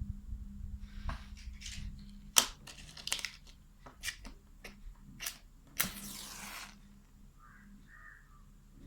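Cardboard cigarette-box packaging being handled and crumpled: a series of sharp crackles and crinkles, ending in a longer rustle about six seconds in.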